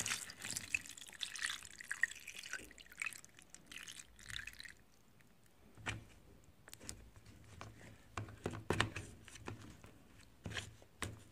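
Water poured into a plastic tub of dried salted meat (qadid), splashing for the first four or five seconds as the meat is covered to soak. The pouring then stops, and scattered knocks and rustles follow as a hand presses and shifts the stiff dried pieces against the tub.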